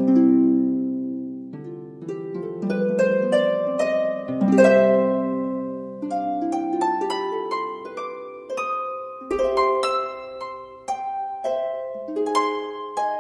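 Instrumental soundtrack music: a flowing melody of notes that each start sharply and ring away, overlapping one another.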